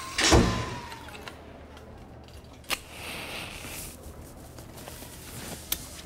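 A loud thump, followed by two sharp clicks about three seconds apart, with a short hiss between them.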